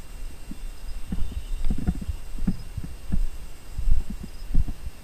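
Footsteps on a concrete floor and the jostling of a body-worn camera, low thumps about every two-thirds of a second as the wearer walks, growing heavier in the second half.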